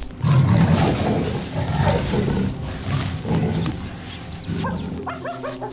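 Leopard growling and snarling in rough, low bursts about once a second. Near the end, a bird starts cooing.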